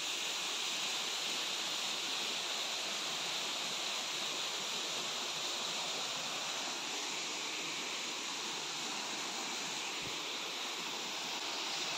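Steady rush of a stream pouring through a narrow rocky crevice below a waterfall: an even, unbroken hiss of falling water.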